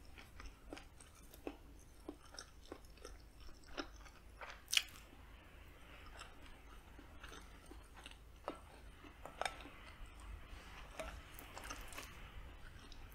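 Close-up chewing of smoked sausage, rice and pinto beans, with many small sharp mouth and utensil clicks as a wooden spoon and fork scoop against a glass plate; one sharper click a little under five seconds in.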